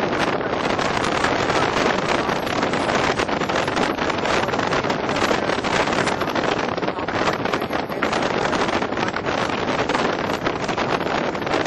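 Steady rush of wind buffeting the microphone while riding in the open back of a truck moving at road speed.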